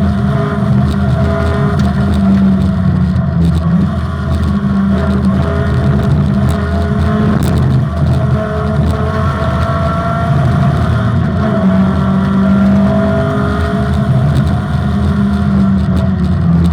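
Opel Manta rally car's four-cylinder engine pulling hard on a special stage, the revs climbing and dropping several times as the gears change.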